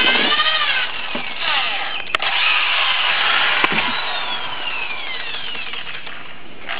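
Power drill spinning a corn kerneler bit through an ear of corn, stripping the kernels off the cob. The motor whine shifts in pitch as the bit loads up, with a couple of sharp clicks, and winds down with falling whines in the second half.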